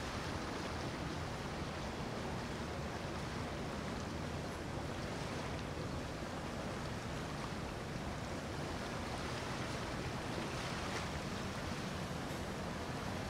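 Large motor yacht running past: a steady low engine rumble mixed with the rush of its bow wave and choppy water.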